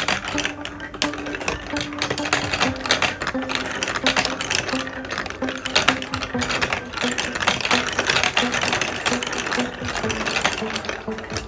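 Marbles rattling and clattering along a plastic building-block marble run, a dense, unbroken stream of rapid clicks.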